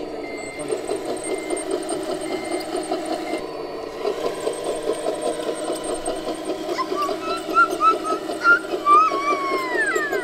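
Diesel engine sound from an RC construction model's sound module, running steadily with a fast pulse. In the first few seconds a beeping alarm sounds about once a second. Near the end come high chirps and then several falling whines.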